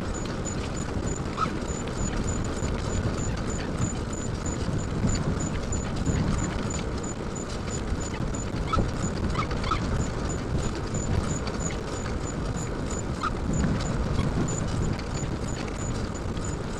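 A bicycle dog trailer rolling along a road: steady low rumble of its wheels on the surface and rattling of the trailer, with wind on the microphone. A faint high tick repeats about four times a second, and a few short squeaks come through.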